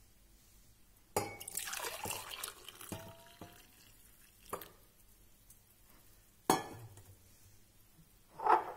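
Hot liquid poured from a pan through a tea strainer into a ceramic mug, a splashing pour lasting about a second and a half, followed by a few light clinks of metal and china.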